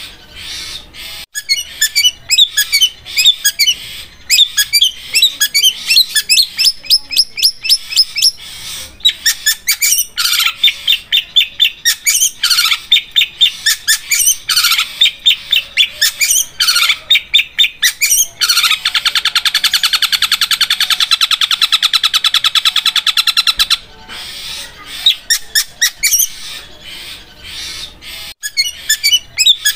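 Long-tailed shrike (cendet) singing a fast string of sharp, repeated high notes, breaking about two-thirds of the way through into a very rapid, even rattling trill lasting about five seconds, like a sewing machine, before returning to the choppier phrases.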